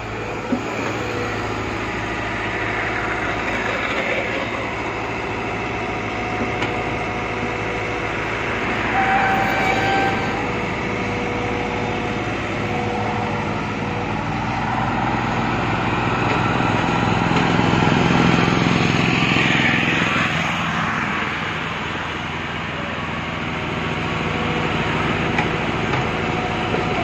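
Crawler excavator's diesel engine running steadily under load while it digs and swings sand, its note swelling louder twice as the arm and bucket work, most strongly about two-thirds of the way through. A brief sharp click about half a second in.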